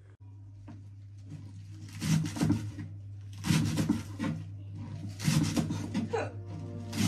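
Background music with a singing voice, swelling in over the first two seconds.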